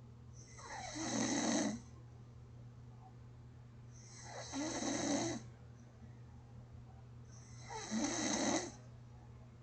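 A person snoring in deep sleep: three snores, each lasting about a second to a second and a half, coming about every three and a half seconds, over a faint steady low hum.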